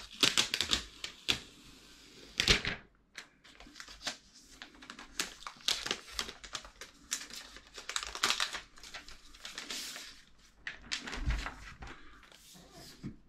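Clear protective plastic film being peeled off a new MacBook Pro, crackling and crinkling in a string of quick, irregular bursts.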